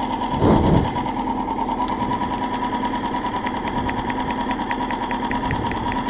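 Outboard motor running steadily with an even hum. From about halfway through, a fast, light ticking of roughly five ticks a second runs over it.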